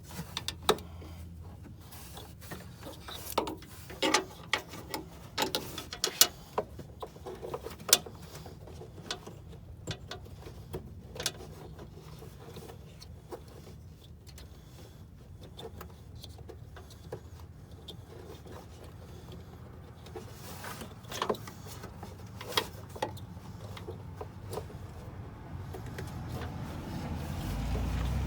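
Scattered clicks and knocks of hands working a headlight bulb and its wiring plug into a pickup's headlamp housing, over a low steady hum. A low rumble swells near the end.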